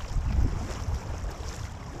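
Wind rumbling and buffeting on the microphone, over the splash and trickle of paddle strokes and water running along the hull of a team canoe being paddled on a river.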